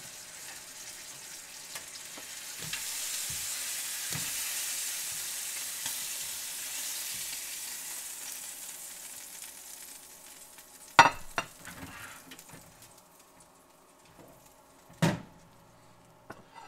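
New York strip steak sizzling on the hot sear crisp tray of a Ninja Foodi air fryer oven, the hiss swelling about three seconds in and fading away as the steak is lifted off with tongs. Two sharp knocks follow near the end, the first the louder.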